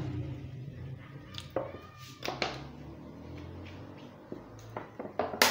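Cooking oil poured into a large empty aluminium pot at the start, then several short knocks and clatters of kitchen things being handled, a cluster of them near the end with the sharpest last.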